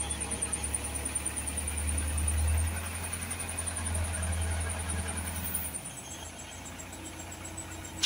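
Agrimac 926 wheel loader's diesel engine working under load as the boom lifts a full bucket of sand and gravel. The engine revs up about two seconds in and eases back just before six seconds. A thin high whine rides over it until the engine eases.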